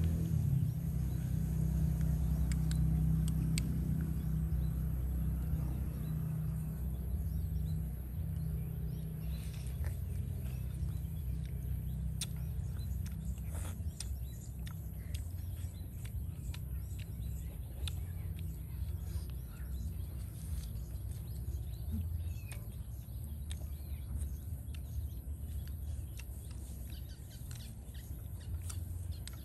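Outdoor ambience: a steady low rumble, a little louder in the first few seconds, with scattered sharp clicks and birds chirping.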